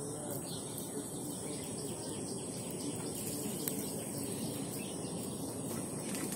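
Steady outdoor background noise with a continuous high-pitched whine and faint chirps.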